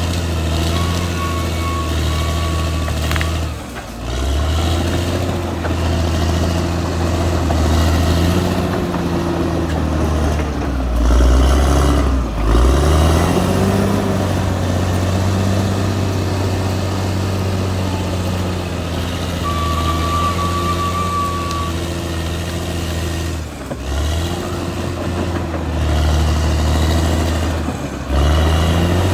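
Caterpillar D6R XL bulldozer's diesel engine working, its pitch sagging and recovering as it pushes, with a clear rise in revs about twelve seconds in. A thin, steady high tone sounds briefly a few times over it.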